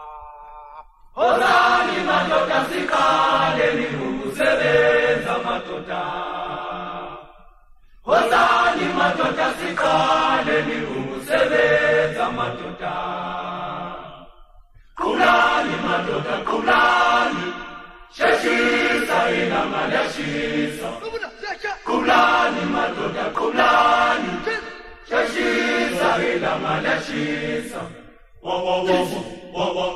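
Chant-like vocal music: sung phrases of about three to six seconds, each followed by a short pause for breath, with no instruments evident.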